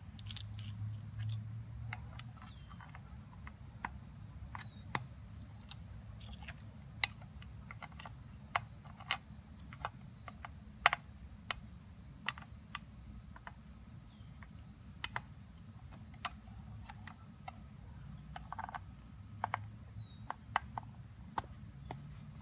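Plastic fins of a 4M water rocket kit being handled and pushed onto a plastic bottle: scattered sharp clicks and taps of plastic on plastic. A steady high insect trill runs underneath.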